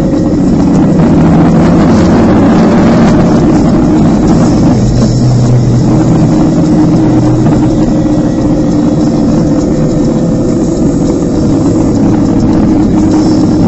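Motorcycle engine running under way, its note shifting in pitch as the bike rides through the bends, with wind rushing over the microphone.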